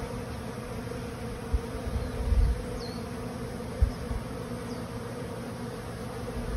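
Honey bees buzzing steadily in and around open stacked wooden hive boxes, a colony awake and active. A few low thumps come between about one and a half and four seconds in.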